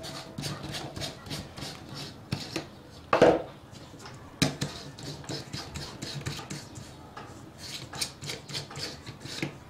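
LED bulbs and a lamp holder being picked up, turned over and set down on a table: a run of small clicks and knocks, the loudest about three seconds in and another about a second later.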